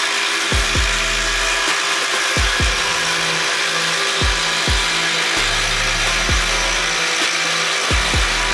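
Cordless impact drivers hammering steadily as they drive fasteners, with a music track's kick drum and bass under it.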